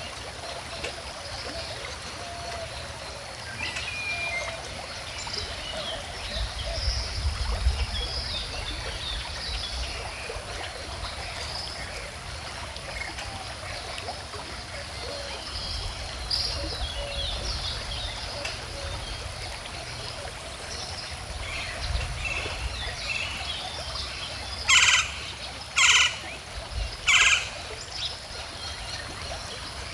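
Stream water flowing steadily, with birds chirping and singing throughout. Near the end, three loud short calls about a second apart stand out above the water.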